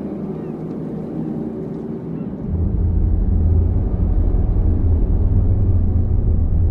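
A softer steady drone, then a deep low cinematic rumble that comes in suddenly about two and a half seconds in and holds steadily, much louder.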